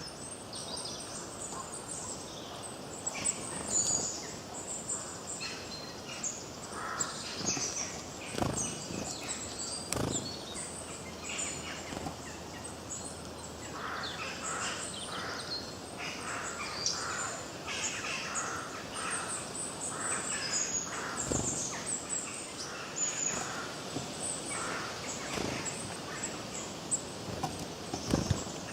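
A chorus of several wild birds singing and chirping at once, with many short overlapping calls and trills, and a few sharp knocks scattered through it.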